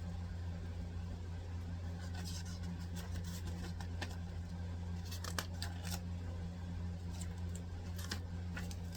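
Paper rustling and light clicks, typical of book pages being leafed through, starting about two seconds in, over a steady low hum.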